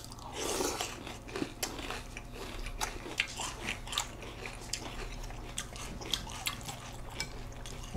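Two people chewing mouthfuls of Special K Original cereal flakes in milk: many irregular crisp crunches of the slightly hard flakes.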